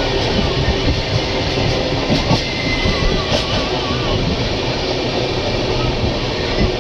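Passenger train coaches running past at close range: a steady, loud noise of steel wheels running on the rails.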